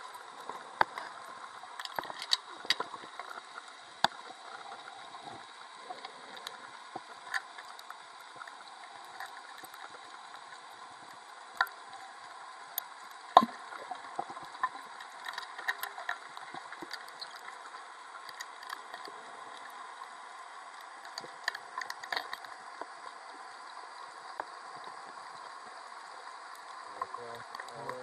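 Underwater ambience on a reef dive: a steady hiss with scattered sharp clicks and knocks, the loudest a single knock about 13 seconds in.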